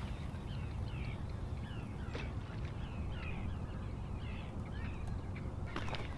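Birds chirping, many short rising and falling calls in quick succession, over a steady low rumble. There are a couple of sharp clicks about two seconds in and near the end.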